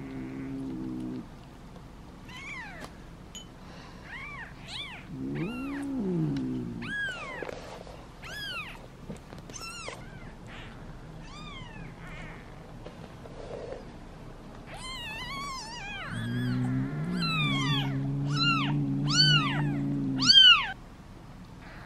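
Newborn kittens mewing: many short, high-pitched cries in quick succession, getting denser and louder toward the end, the cries of hungry kittens wanting milk. Low, steady tones sound underneath at times.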